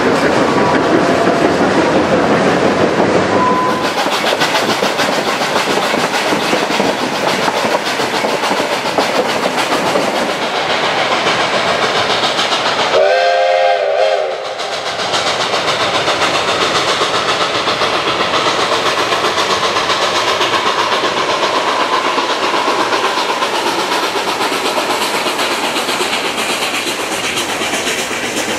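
Durango & Silverton narrow-gauge passenger cars rolling past with the clickety-clack of wheels over rail joints. About halfway through comes a short steam whistle blast, and then the steam train runs on, working along beside a rushing river.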